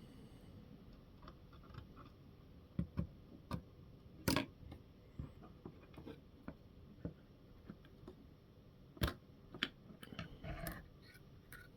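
Scattered light clicks and taps of small RC car parts being handled as a drive shaft is test-fitted to the rear axle, the sharpest knock about four seconds in.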